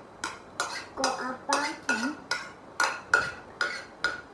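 Metal spoons clinking and scraping against ceramic bowls while eating, about ten light, irregular clinks, two or three a second. A brief low murmur of a voice comes in about the middle.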